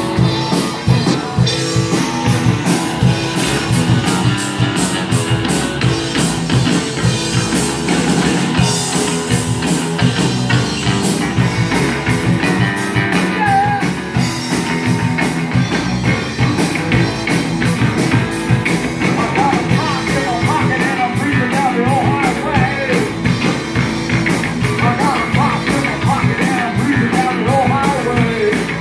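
Live rock band playing loudly: drum kit with steady cymbal hits, electric guitar and bass guitar. A singer's voice comes in over the band in the second half.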